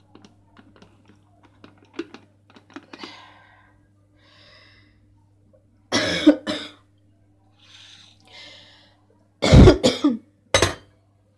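A person coughing in several short bouts, the loudest about six and ten seconds in, over a low steady hum.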